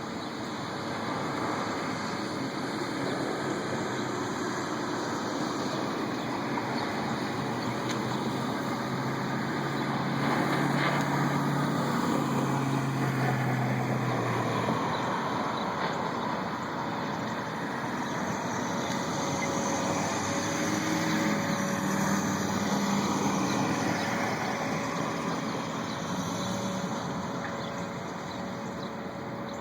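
Distant, low rumbling drone with faint tones that slowly rise and fall, swelling about a third of the way in and again later. Its source is unidentified: a mysterious noise heard from the sky.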